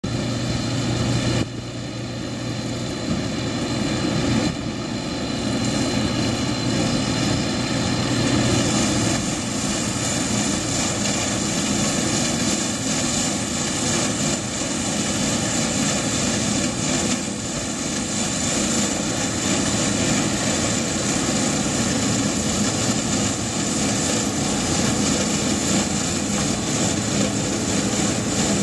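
Yanmar YWH1400A combine baler's diesel engine running steadily under load while it cuts and bales forage rice, a constant drone with a brief drop in level about a second and a half in.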